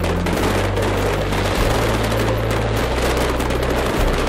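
Fireworks display: a dense, continuous crackle of many rapid pops and bangs from bursting shells, over a low steady hum.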